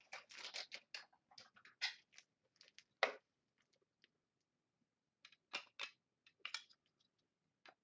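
Hands handling trading cards and a clear plastic magnetic one-touch card holder: light rustling and plastic clicks, with one sharp click about three seconds in and a few more clicks near the end.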